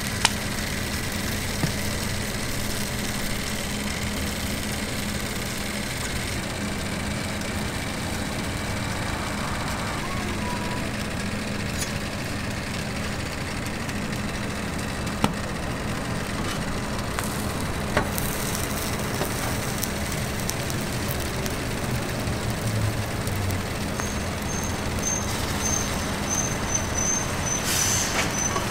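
Steady hiss and hum of a flat-top griddle cooking station, with a few sharp clicks of a metal spatula on the griddle, and busier clatter near the end.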